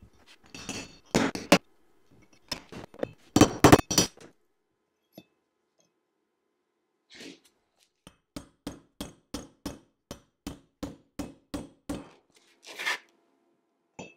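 Hammer blows ringing on steel in the Dana 25 front wheel hub: a few uneven strikes on a brass drift knocking the old bearing cups out. After a pause comes a steady run of quick blows, about four a second, driving a new bearing cup into its seat.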